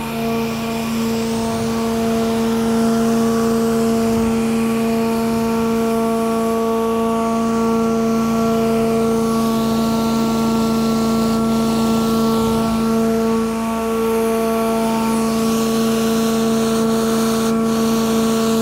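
Delux Tornado 4800 vacuum recovery system running steadily together with the pressure-washing equipment: a constant mechanical hum with a strong whine over it, dipping briefly twice.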